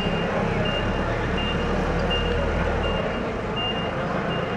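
Forklift's reversing alarm beeping, a short high beep repeated about every 0.7 seconds, seven times, over a low engine hum that drops away about three seconds in.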